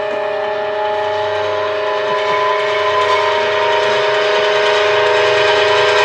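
Live contemporary chamber music: a sustained chord of several held tones, slowly swelling in loudness, over a hazy wash of noise.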